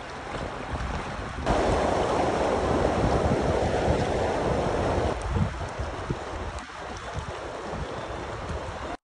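Rushing water of small whitewater rapids, with wind buffeting the microphone. The rush grows louder about one and a half seconds in and drops back after about five seconds.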